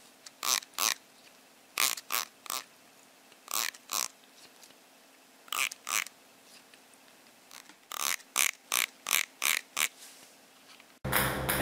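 A cat making short breathy puffs, in pairs and threes, then a quicker run of about eight.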